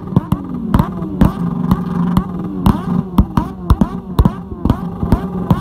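Several sport motorcycle engines run flat out against their rev limiters while their rear tyres spin on the spot in a burnout. There are irregular sharp exhaust bangs, about three a second, over a steady engine note, and other engines rev up and fall back.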